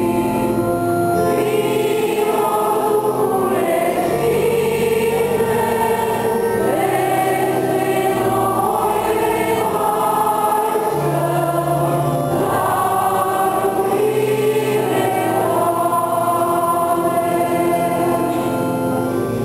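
Church choir singing a hymn, with sustained notes moving phrase by phrase.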